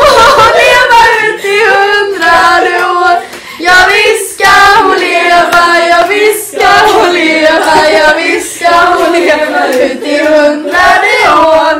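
A group of people, mostly women's voices, singing a song together loudly in phrases with short breaks.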